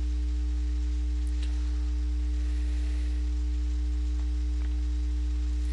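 Steady electrical mains hum on the recording: a constant low drone with a few fainter steady higher tones above it and light hiss.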